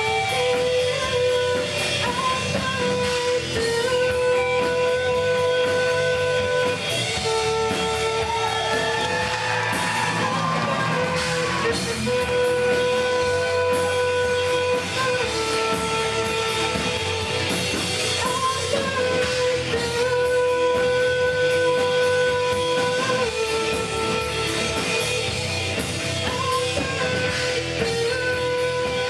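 Rock-style band music with guitar and drum kit, with long held notes.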